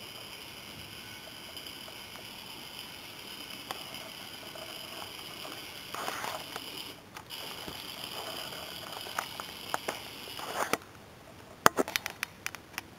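Tiny electric drive motor of a Q-STEER micro RC car whining at a steady high pitch as the car runs, with a short break about seven seconds in. The whine stops near eleven seconds, and a quick series of sharp clicks and taps follows.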